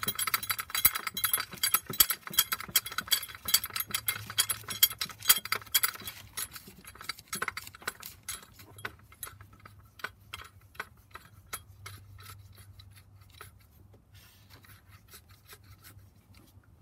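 Rapid metallic clicking and clinking of steel bolts against the alternator's aluminium mounting bracket as they are worked into place. The clicks are dense for the first several seconds, then grow sparser and fade away.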